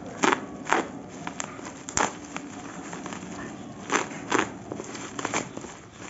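Plastic parcel packaging being handled and opened: irregular sharp crackles and crinkles, about half a dozen louder snaps among softer rustling.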